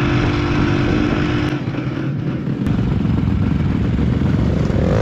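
Off-road motorcycle engine running at a steady speed, with rushing wind and road noise over it. About a second and a half in, the steady engine tone cuts away to a rougher, choppy low rumble.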